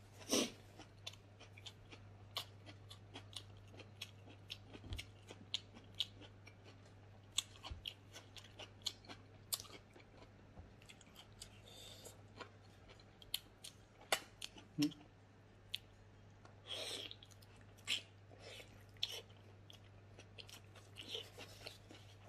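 Close-up chewing of a person eating with bare hands: wet lip smacks and mouth clicks coming irregularly, over a steady low hum.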